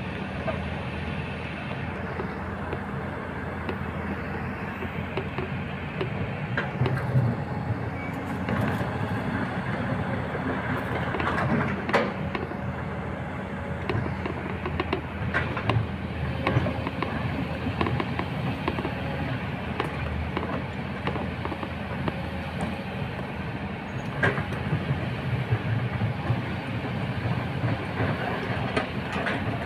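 Kobelco SK210 long-reach excavator's diesel engine running steadily under load as the bucket works a pile of stones, with several sharp clanks of rock against the bucket at irregular moments.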